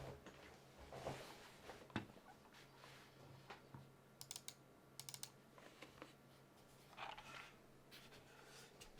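Faint, scattered keystrokes on a custom mechanical keyboard with lubed and filmed vintage Cherry MX Black linear switches on an aluminum plate under GMK keycaps: a few separate clacks here and there rather than steady typing.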